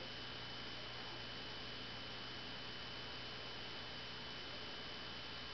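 Steady hiss with a faint electrical hum and a thin, high, steady whine: room tone and recording noise, with no distinct sound from the animal.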